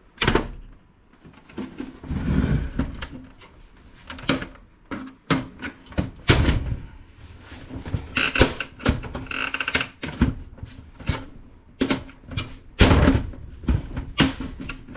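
Knocks, clicks and short scrapes of the parts of a Dell Alienware desktop PC case being handled and pried apart by hand, a dozen or so separate knocks with a couple of short rattling scrapes between them.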